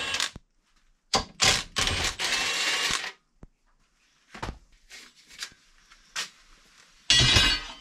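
Steel parts of a clamped hammer form rattling and scraping as it is taken apart, in several separate bursts with a loud metallic scrape near the end.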